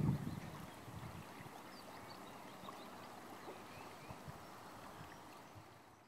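River water running over shallow riffles, a steady rushing, with wind buffeting the microphone for the first half second. It fades out at the end.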